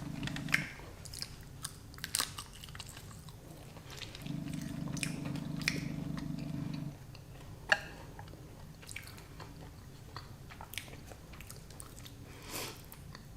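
A person chewing and biting food close to the microphone, with short wet clicks and smacks scattered throughout. A low steady hum sounds for the first half second and again for a few seconds in the middle, stopping abruptly each time.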